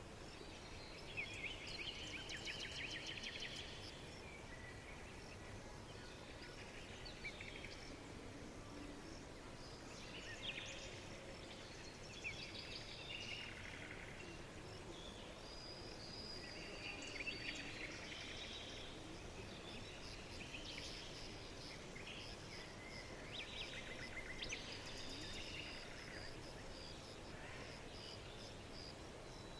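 Several songbirds singing and chirping, with quick trills and repeated rapid note series, over a steady faint background hiss.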